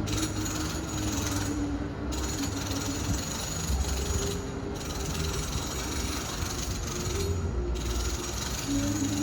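Renovation noise from another room in a home: a power tool running with a steady hum and a fast mechanical rattle, dipping briefly a few times.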